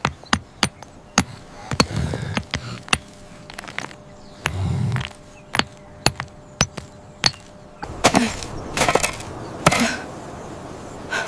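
A series of sharp, irregular knocks and impacts, with two deeper thuds in the first half, then several longer, rougher, noisier sounds in the last few seconds.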